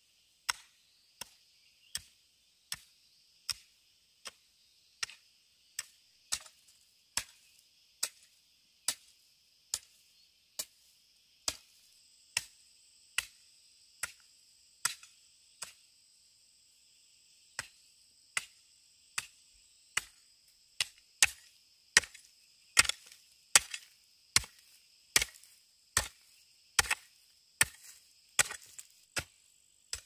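Rhythmic chopping strokes of a hand tool, a little more than one a second, with a short pause near the middle and heavier strokes in the later part. Insects shrill steadily behind them.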